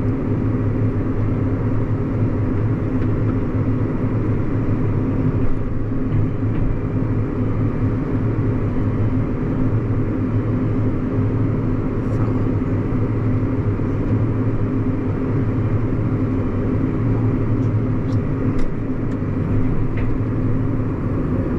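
Tractor diesel engine running at a steady speed, driving the grain cart's PTO unloading auger as wheat is emptied into a truck; an even drone throughout.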